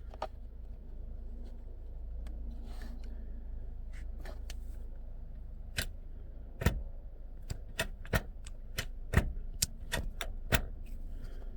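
Irregular sharp metal clicks and knocks from a Nissan 350Z short shifter assembly being handled and adjusted, few at first and coming thicker in the second half, over a low steady hum.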